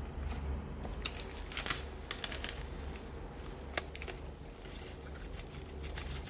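Spice packet crinkling as tandoori masala powder is shaken out into a steel bowl, with scattered small clicks and crackles over a steady low hum.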